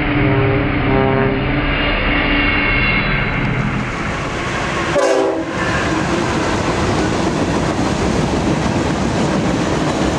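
Freight train cars rolling past on the rails, a steady rumble and clatter of wheels. In the first few seconds a locomotive horn chord sounds in repeated blasts over the rumble, and about halfway through the sound cuts to another passing freight.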